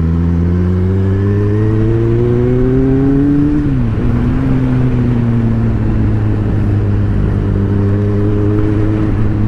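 Motorcycle engine pulling hard with its pitch rising for about three and a half seconds, then dropping sharply as the rider shifts up a gear, and running on steadily with the revs easing slightly near the end.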